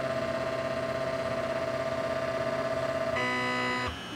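Resin 3D printer's stepper motor whining steadily as it drives the build plate. The pitch changes about three seconds in, and the motor stops abruptly near the end.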